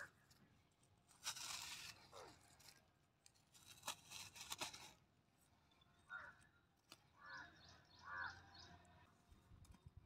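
Near silence broken twice by faint rustling and scraping, then a few short faint calls near the end.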